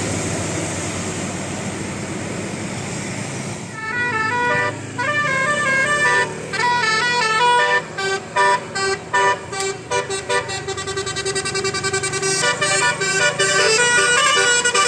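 Indonesian bus 'telolet basuri' multi-tone musical horn playing a fast tune of short stepped notes, starting about four seconds in after a stretch of steady vehicle noise.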